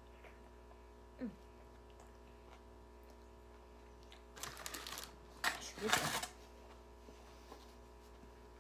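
Paper rustling in two short bursts a little past the middle, as a paper napkin is handled while eating a hamburger. A brief low 'mm' from the eater about a second in, over a faint steady hum.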